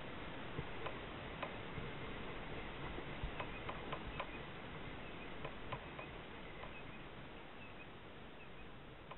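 Choppy water lapping around a kayak with a steady outdoor hiss, broken by scattered light ticks and clicks that thin out and grow quieter toward the end.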